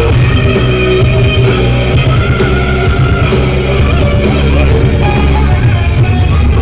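Loud rock-style music with heavy, booming bass, played at full volume through a carnival sound system being sound-checked.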